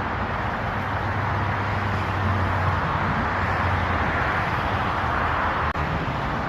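Steady road-traffic noise: a continuous wash of passing vehicles with a low hum underneath, swelling slightly now and then.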